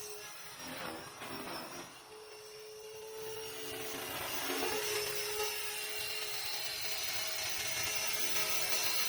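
GAUI X3 electric RC helicopter running, its motor and rotor making a steady whine that grows louder from about three seconds in.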